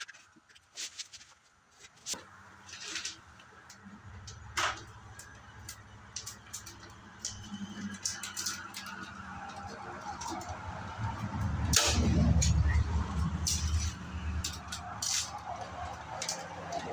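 Kraft-faced R13 fiberglass insulation batts being pressed into wall stud bays and fastened: scattered sharp clicks and crinkling paper facing. Under them a vehicle's low rumble builds, loudest about twelve seconds in.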